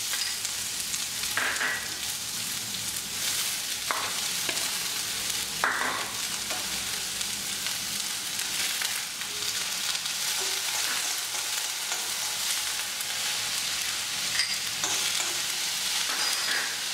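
Diced vegetables sizzling in a spoonful of hot oil in a stainless steel kadai as they are tipped in and stirred with a steel spoon: a steady sizzle, with a few sharp clinks against the pan in the first six seconds.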